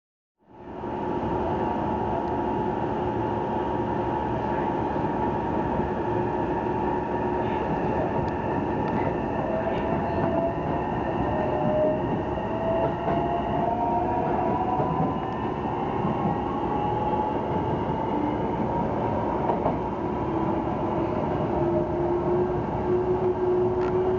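Hankyu 9000 series electric train running and accelerating, its motor whine rising slowly in pitch over a steady rumble of running noise. The train is climbing a gentle upgrade on rain-soaked rails in a typhoon with no wheel slip.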